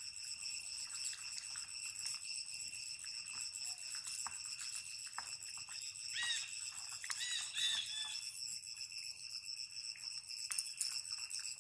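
Steady high-pitched insect drone, held on one pitch throughout, with a few short chirping calls about six to eight seconds in.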